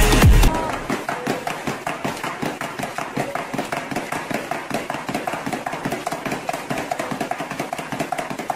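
Rapid light tapping, a quick run of sharp strikes several times a second, from fast manual work.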